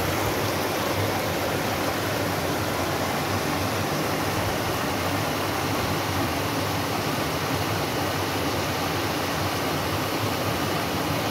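Small waterfall: water spilling over rock ledges into a shallow pool, a steady rushing noise.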